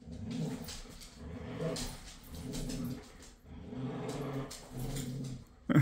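Dogs growling in repeated short bouts while playing tug-of-war with a toy: play growling. A sudden short, loud sound comes near the end.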